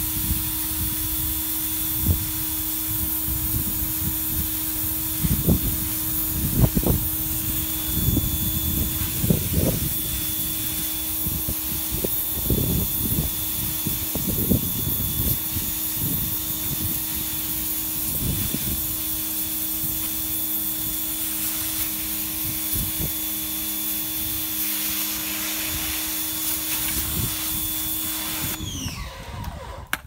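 Pressure washer running steadily, with a constant hum, whine and hiss of spray as the jet strips peeling paint off a painted wooden sill. Irregular knocks come and go throughout. Near the end the motor winds down with a falling pitch and stops.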